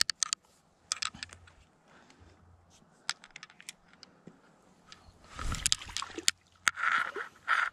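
Spinning rod and reel being handled: a few sharp metallic clicks in the first few seconds, a rustle past the middle, then a steady whirring with clicks near the end as the reel handle is cranked.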